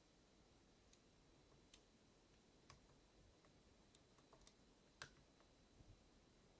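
Near silence: room tone with faint, irregular ticks and clicks, about a dozen, the sharpest about five seconds in.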